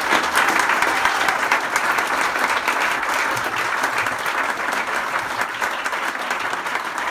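Audience applause: many people clapping, a dense patter that eases off slightly toward the end.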